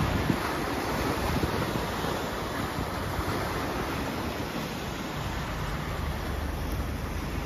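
Wind buffeting the microphone over small river waves lapping on a shingle foreshore, gustier at the start. A low steady hum joins near the end.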